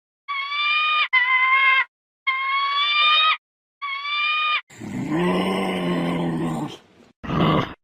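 Four short, high-pitched animal calls, each under a second and cut off sharply, then a lower, rough, growling animal call from about five seconds in, with a short grunt near the end.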